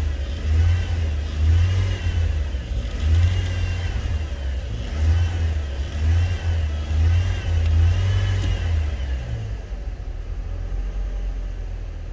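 First-generation Chevrolet Trailblazer engine revved in a quick series of throttle blips, about one a second, then settling back to idle about nine and a half seconds in. The revving is meant to heat the exhaust around the catalytic converter.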